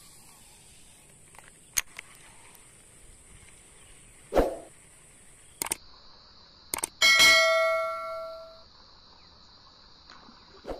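Subscribe-button sound effect: a few quick clicks, then a bell ding that rings on for about a second and a half. A short thud comes a little earlier, about four seconds in.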